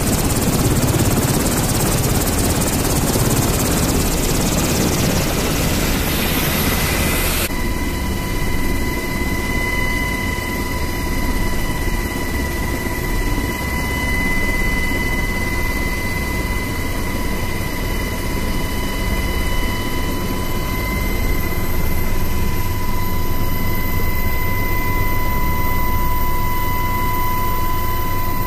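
UH-60 Black Hawk helicopter running on the ground: a loud, steady roar of rotor and turbine noise. About seven seconds in, the sound changes suddenly to the cabin sound, a steady rumble with a high, even whine from the helicopter's transmission.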